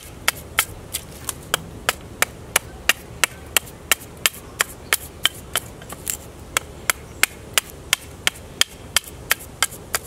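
A chopper knife's blade striking a wooden bow stave in quick, even chops, about three a second, cutting off chips to carve contour into the bow's handle.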